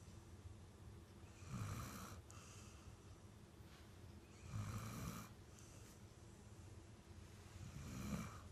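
A dog snoring in its sleep: three slow snores, one about every three seconds.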